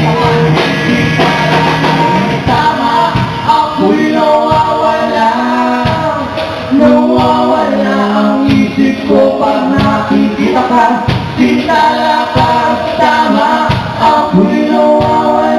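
Live band music with singing: held, gliding vocal lines over the band's steady beat.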